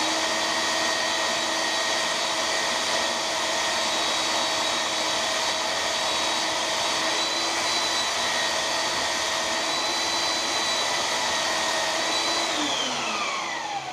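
Handheld electric belt sander running at full speed with a steady whine while a rubber cleaning stick is held against the moving belt to clear out clogged sanding dust. Near the end the motor is switched off and winds down, falling in pitch.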